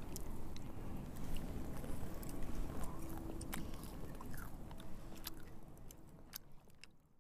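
People chewing and biting soft, freshly fried pakon pitha (rice-flour and date-palm jaggery cakes), with scattered small clicks from handling the cakes. The sound fades out near the end.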